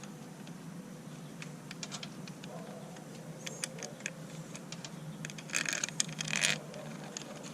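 Small metal bolts clinking and rattling as they are handled and started by hand into a new EGR valve's mounting flange, with scattered clicks and a denser burst of rattling a little after halfway. A steady low hum runs underneath.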